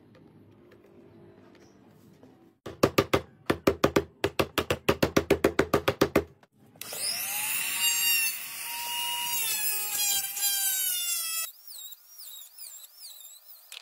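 A quick run of sharp taps, about six a second for three and a half seconds, from a small hammer beating wire pieces into the cracked plastic drum. Then a small angle grinder starts up and runs with a whine that slowly sags, cutting off abruptly; a faint warbling high tone follows near the end.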